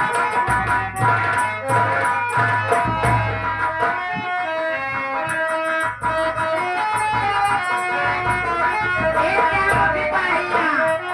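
Instrumental music: a plucked-string melody over a steady drum beat.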